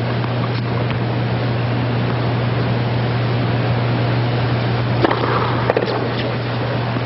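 Tennis ball struck by a racket twice, about five seconds in and less than a second apart, as a point is played, over a steady hiss and a steady low hum on the broadcast sound.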